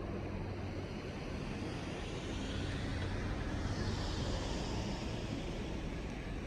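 Vehicle noise: a steady low rumble with a hiss that swells about three seconds in and then eases.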